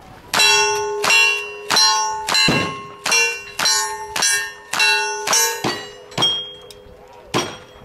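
A rapid string of about a dozen shots, a little over half a second apart and further apart near the end, each answered by a steel target clanging and ringing.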